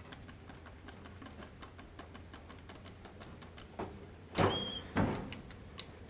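Rear axle on a four-link suspension being jacked up and down with a floor jack: light ticks and clicks from the jack and linkage, then two clunks about half a second apart, the first with a short squeak.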